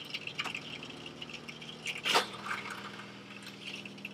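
Bathroom sink faucet running into the sink as the camper's water pump pushes pink RV antifreeze through the line, with the pump's steady hum underneath: the water lines being purged for winterizing. A single sharp knock about two seconds in.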